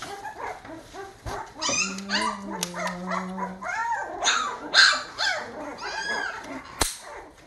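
A dog whining and yipping in many short, rising-and-falling calls, with a sharp click about a second in and another near the end.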